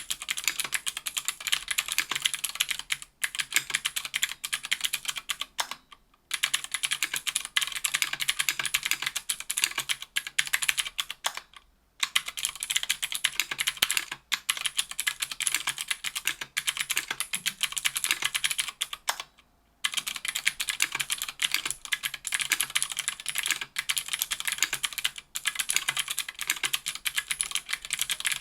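Fast, continuous typing on a KBDfans Tofu 60% aluminum keyboard with stock Gateron Blue Ink 70g clicky switches, an aluminum plate and GMK keycaps: a dense stream of sharp clicks, broken by several brief pauses.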